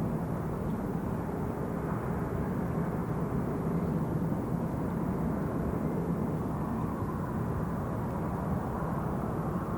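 Ship engines running with a steady low rumble and a faint hum over it.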